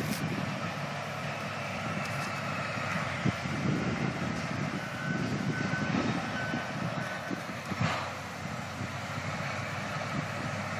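Caterpillar D7 bulldozer's diesel engine running under load with its tracks clanking, heard through the bush as it pushes a fire break, a steady rumble throughout. A few short beeps sound about halfway through.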